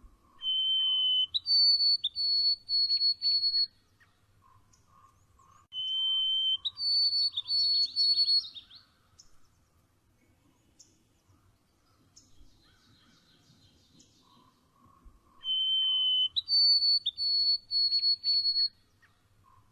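A songbird singing the same clear whistled phrase three times, with long pauses between. Each phrase is a held steady whistle that steps up to a higher note, repeated in a quick run of short pulses. Fainter, lower warbling from another bird fills the gaps.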